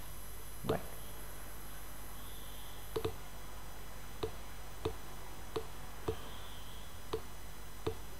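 Computer mouse button clicking, about nine single clicks half a second to a second or so apart, each one setting an anchor point with Illustrator's pen tool. A steady faint hiss runs underneath.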